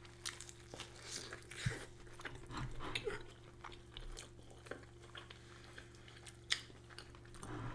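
Close-miked eating: soft, irregular clicks, smacks and small crunches of chewing and biting food, over a faint steady hum.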